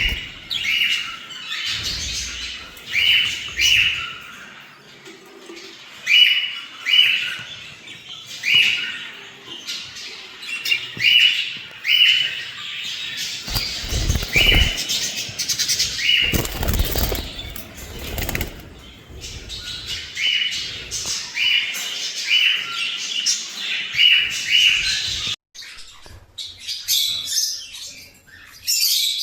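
Small pet parrots chirping in short, repeated calls about once a second, with a few seconds of low rustling noise around the middle.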